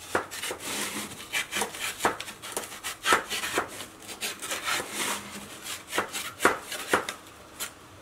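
A craft knife scraping and cutting through the soft insulating body of a microwave kiln. The strokes are irregular and rasping, with a few sharper scratches among them.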